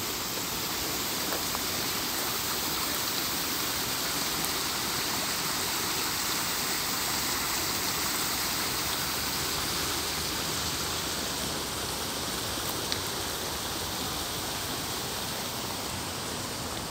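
Steady rush of running water from a garden water feature.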